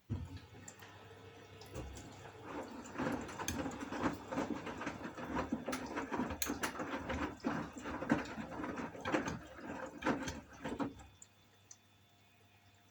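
Water rushing and splashing inside a Gorenje washing machine, in uneven surges with small clicks. It starts suddenly and stops abruptly after about eleven seconds.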